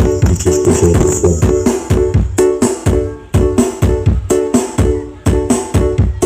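Loud music with a steady, quick drum beat and sustained pitched notes, with a high jingling shimmer over the first two seconds.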